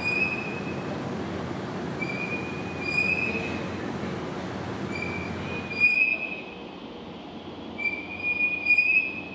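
Towing carriage of a ship-model test tank running along its rails: a steady rumble with a high squeal from the wheels that comes back about every two and a half seconds. The rumble drops off about six seconds in, while the squeals go on.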